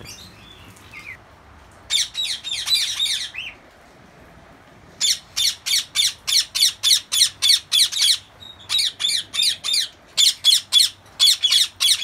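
Small caged parrots squawking: a cluster of shrill calls about two seconds in, then a quick run of sharp, shrill squawks, about four a second, from about five seconds on, with a short break near eight seconds.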